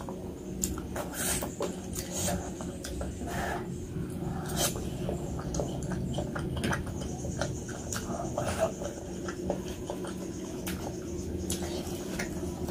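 Close-miked eating sounds of spicy noodles and meatballs: irregular wet mouth smacks and chewing clicks over a low steady hum.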